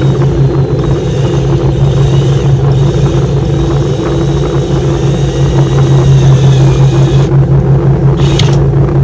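Cordless drill running as it bores a pilot hole in the car's plastic front fascia, its motor whine stopping about seven seconds in. A steady low hum runs underneath throughout.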